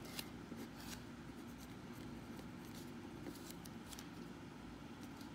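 Pen scratching on paper in short, irregular strokes as equations are written, over a faint steady hum.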